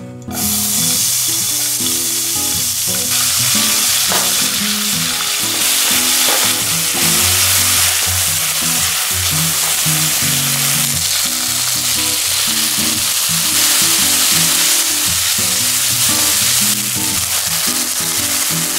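Minced pork sizzling loudly as it fries in hot olive oil in a ceramic-coated wok, the sizzle starting abruptly as the meat goes into the pan and running steadily on.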